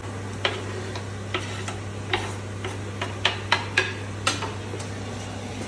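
A cooking spoon or spatula knocking and tapping against a pan, about ten irregular clicks with the sharpest a little past the middle, over a steady low hum.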